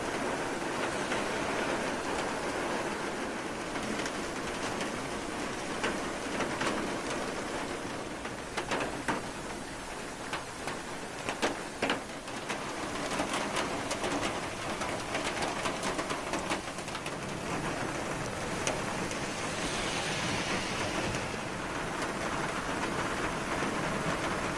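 Heavy rain pouring steadily onto a road, with scattered sharp taps of drops through the middle stretch.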